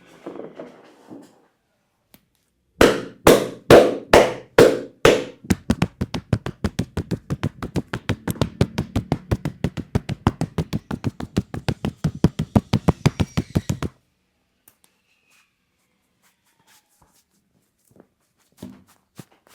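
Massage slaps and taps by a barber's hands, the percussive strokes of an Indian head massage: six heavy slaps about two a second, then a fast even run of lighter taps, about five a second, that stops suddenly after some eight seconds.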